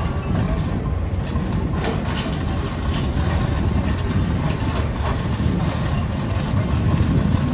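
A heavy engine running steadily at idle, a continuous low rumble with a little faint clatter over it.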